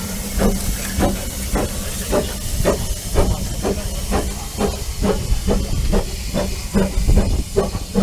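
Narrow-gauge Hunslet saddle-tank steam locomotive starting away, its exhaust beats quickening from about two to nearly three a second. Steam hisses from the open cylinder drain cocks throughout.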